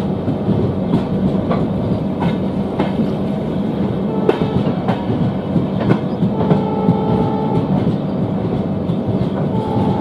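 Passenger train coach rolling slowly over the station tracks, its steel wheels clicking irregularly over rail joints and points under a steady rumble. A horn, most likely the hauling ALCO diesel locomotive's, sounds briefly past the middle and again near the end.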